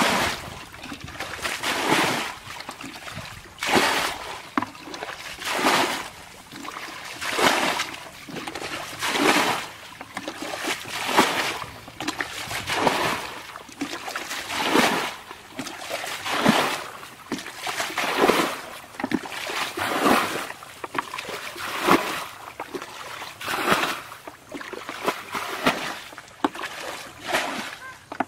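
Muddy ditch water being bailed with a plastic basin: a scoop and a heavy splash of thrown water about every two seconds, with trickling and dribbling in between.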